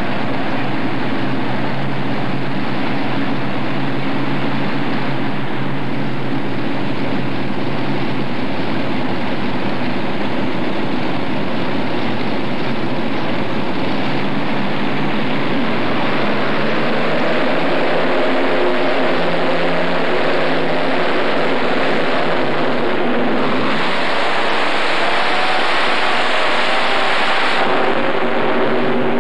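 The supercharged engines of a multi-engine modified pulling tractor run loud and steady, then rev higher under full throttle as the tractor pulls the sled. The engine note rises past the halfway mark and turns harsher and louder for a few seconds near the end.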